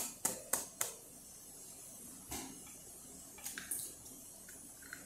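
An egg tapped four times in quick succession against the rim of a mixing bowl, then a single knock about two seconds later. Soft cracking near the end as the shell is pulled apart over the bowl.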